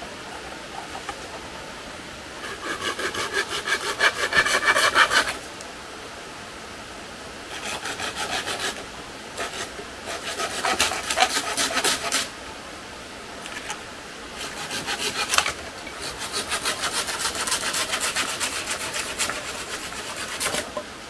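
Hand saw cutting wood in five runs of quick back-and-forth strokes with short pauses between them.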